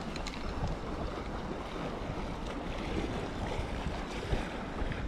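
Wind buffeting the microphone over choppy lake water, with small waves lapping.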